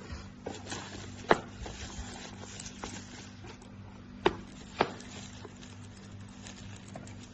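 Three sharp taps, about a second in and twice close together past the four-second mark, with fainter ticks in between, over a steady low hum.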